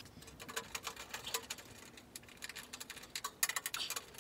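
Light clicks and taps of hands handling a small aluminium under-tray plate and 6 mm stainless bolts with washers, a scattered run of small metallic ticks that is busiest near the end.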